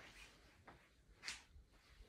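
Near silence: quiet room tone with a few faint soft swishes, one a little louder just past halfway.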